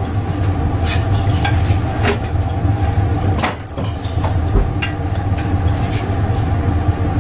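Steady low machine drone in a glassblowing workshop, with scattered sharp clicks and clinks of metal tongs and shears working the hot glass.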